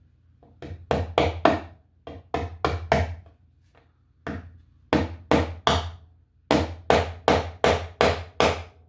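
Claw hammer tapping a small nail-in thermostat-wire clip into a wooden post. About twenty quick, sharp blows come in bursts of three or four, with short pauses between, and a longer run of about seven near the end.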